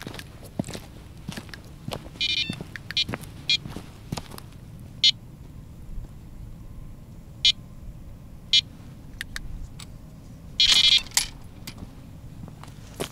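Footsteps crunching on frozen snow, with short squeaky crunches at irregular intervals and a longer run of squeaks about eleven seconds in.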